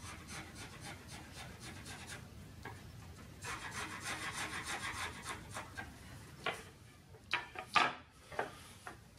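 A chisel scraping old dried glue off the mitred end grain of a wooden board in rapid repeated strokes, strongest in the middle. A few sharp wooden knocks follow near the end as boards are set down on the workbench.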